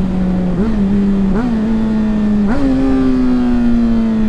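Honda CBR600RR inline-four engine downshifting three times as the bike slows. The engine pitch jumps up sharply with each shift, then sinks steadily as the bike coasts down on engine braking, over a steady rush of wind noise.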